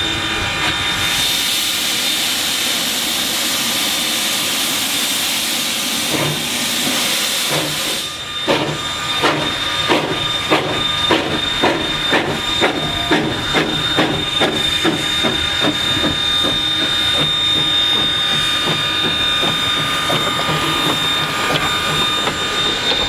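Narrow-gauge steam locomotive Georgetown Loop #12 hissing loudly with steam for several seconds, then pulling away. Its exhaust chuffs start about eight seconds in at two to three beats a second and grow fainter as it passes, over a steady high-pitched tone.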